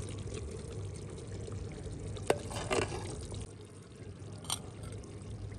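Thick mutton curry being served with a steel ladle from a clay pot onto a ceramic plate. A single sharp metal clink comes about two seconds in, then a short wet splash of gravy, and a fainter tap near the end, all over a steady low background hum.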